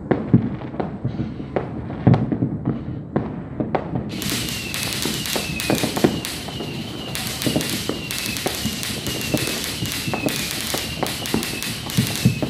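Fireworks and firecrackers going off, a run of sharp bangs and pops of varying strength. From about four seconds in, a steady hiss joins, with a short falling whistle-like tone repeating about every half second.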